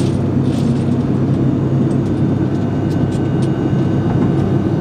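Steady airliner cabin noise: an even low drone of the engines and rushing air, with a faint steady whine above it.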